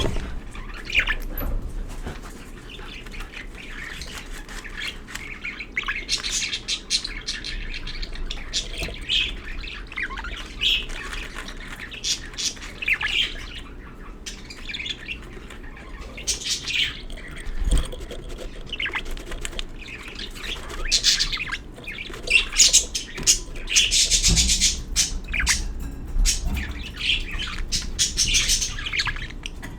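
Budgerigars chirping and squawking on and off, with a busier run of harsh squawks past the middle.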